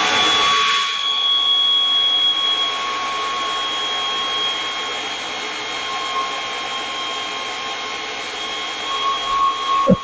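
Pneumatic air ratchet running continuously with a high whine, spinning out a very long transmission bell housing bolt; the pitch drops briefly near the end.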